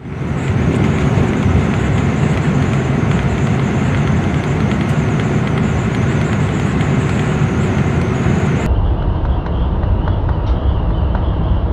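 Steady rushing noise of storm wind buffeting the microphone, heaviest in the low end. About three-quarters of the way through it abruptly turns duller, as at a cut.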